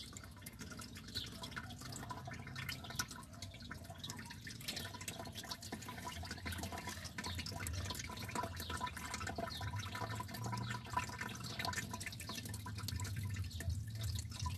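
A thin stream of worm-compost leachate trickling from the drain outlet of an old washing machine into the liquid collected below, a steady fine splashing.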